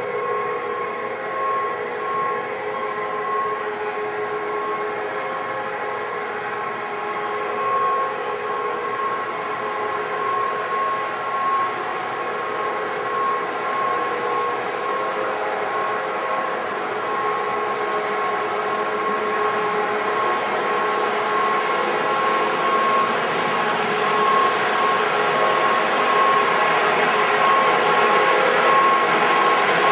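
Lionel F3 Canadian Pacific model diesel locomotive set running on O-gauge track with a freight train, a steady mechanical running sound with a held high tone, growing louder as the train draws near.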